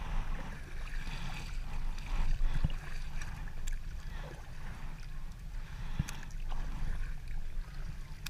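Kayak paddle blades dipping and pulling through calm sea water, with splashing and trickling off the blades and water lapping on a plastic sit-on-top kayak's hull, over a steady low rumble. A couple of sharp knocks, about two and a half and six seconds in.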